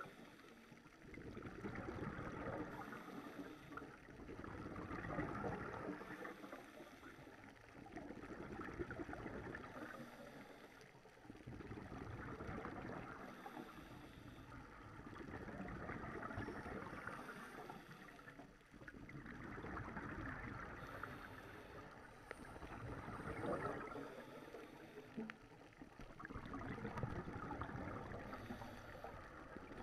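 Scuba regulator breathing heard underwater: exhaled bubbles gurgling and rushing in slow swells about every three to four seconds, with quieter inhalations between.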